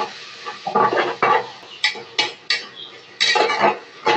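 A spatula scraping and tapping against the inside of an aluminium pressure cooker as onion-tomato masala is stirred, in a series of irregular short strokes.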